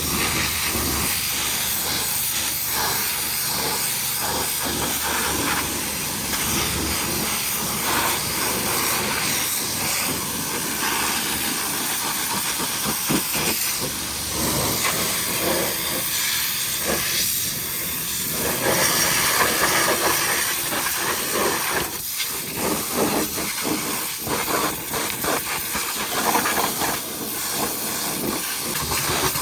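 High-pressure washer spraying water: a steady, loud hiss that swells and dips unevenly, loudest a little past halfway.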